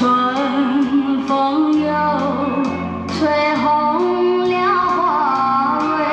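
A woman singing a slow melody with held notes over instrumental backing, a song played back through Yamaha NS-500 two-way loudspeakers with beryllium-dome tweeters, driven by a Yamaha B-2 V-FET power amplifier.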